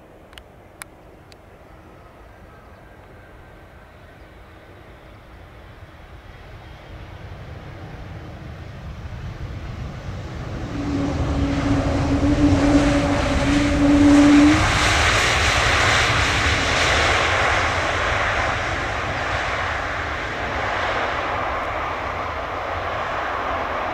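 Embraer E195-E2 jet airliner coming in to land, its Pratt & Whitney geared turbofan engines growing steadily louder to a peak about halfway through. A steady low hum sounds for a few seconds at the peak, then a rushing jet noise stays loud as it passes.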